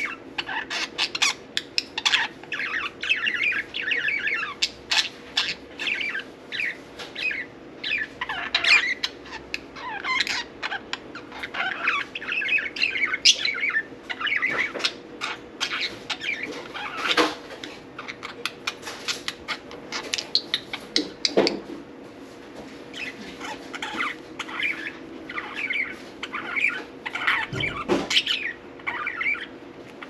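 Budgerigars chattering and warbling in a continuous stream of short chirps and twitters, over a faint steady hum.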